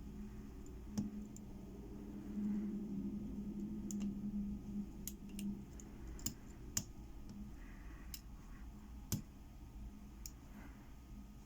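Scattered small, sharp metallic clicks of a lock pick and tension wrench working the pins of a six-pin Hero padlock during single-pin picking. A low steady hum runs underneath in the first half.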